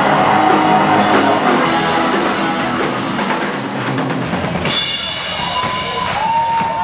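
Live rock band playing loudly, the Tama drum kit to the fore with bass guitar. About two-thirds of the way through the song ends and the crowd starts cheering.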